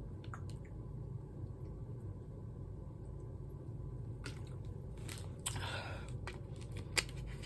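A man drinking from a plastic water bottle: quiet swallowing over a low room hum, then a few louder rustles from about four seconds in and one sharp click near the end as the bottle comes down.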